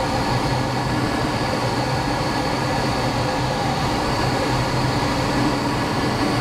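Light aircraft's piston engine and propeller droning steadily, heard from inside the cockpit in level flight.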